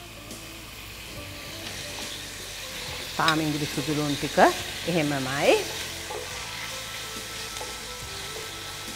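Chicken pieces and chopped onions frying and sizzling in a pot while a wooden spatula stirs them. About three seconds in, a few loud rising and falling tones sound for a couple of seconds.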